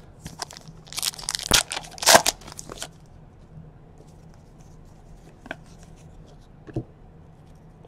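A baseball card pack's foil wrapper being torn open and crinkled: a quick run of ripping sounds in the first three seconds, loudest about a second and a half and two seconds in. Then a couple of light clicks as the cards are handled.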